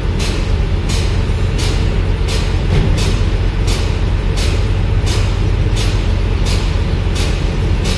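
Scania P410 XT truck idling steadily with a low hum, over a rhythmic hiss that pulses about every 0.7 seconds.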